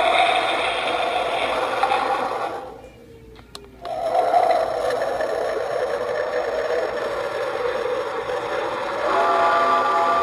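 Halloween sound-effects box playing a harsh scraping, hissing spooky effect through its small speaker. The effect cuts out for about a second around three seconds in, then resumes, and a steady buzzing tone joins near the end.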